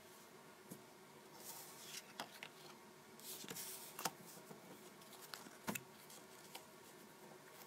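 Paper cut-outs being lifted, slid and laid onto a paper phone mock-up: soft paper rustles with a few light taps, the sharpest about four and six seconds in.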